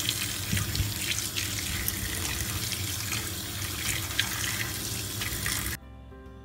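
Kitchen tap running steadily as fresh tomatoes, cucumber and basil leaves are rinsed under it in the sink. The water cuts off suddenly near the end, and soft music follows.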